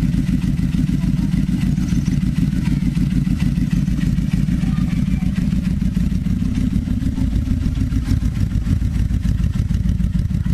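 Yamaha XVZ1300 Royal Star's V4 engine idling steadily through its stock-looking chrome exhausts, a deep, fast and even exhaust pulse.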